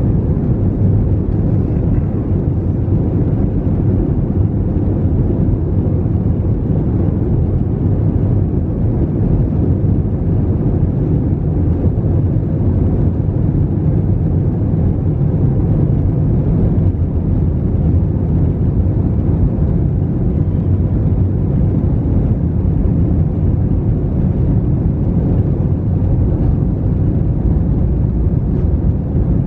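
Steady low rumble inside an Airbus A321-200's cabin, from the engines and airframe as the airliner taxis on the ground.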